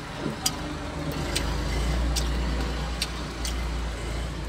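A low steady rumble, with faint scattered clicks from a man chewing a mouthful of raw snail meat.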